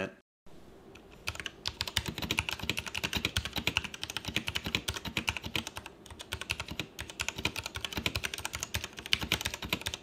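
Typing on a Royal Kludge RK89 mechanical keyboard with its stock Outemu Red linear switches: a fast, continuous stream of keystroke clacks that starts just over a second in.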